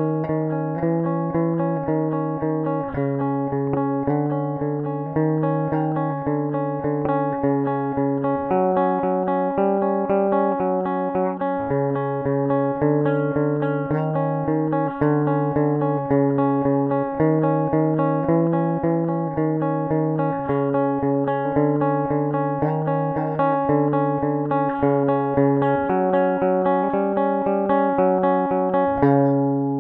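Heavy metal guitar riff: fast repeated picked notes that shift pitch about every half second, with bass guitar underneath, ending on a held chord that rings out near the end.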